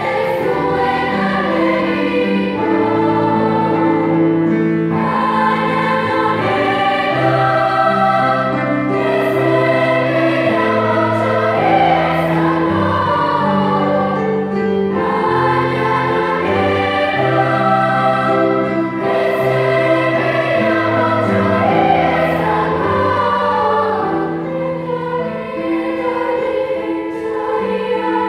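Children's choir singing a piece in several parts with piano accompaniment, held notes moving from chord to chord.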